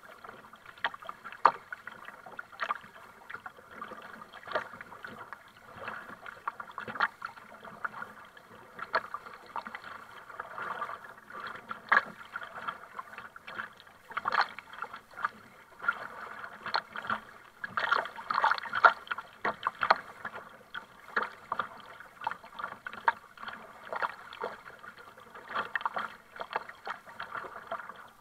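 Double-bladed kayak paddle dipping into the sea on alternate sides, with a sharp splash every second or two and water running off the blades between strokes.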